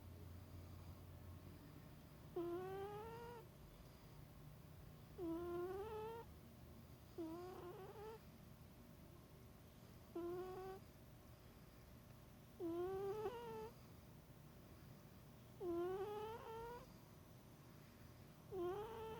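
Sleeping cat snoring: a short snore that rises in pitch on each breath, seven times, about every two and a half to three seconds.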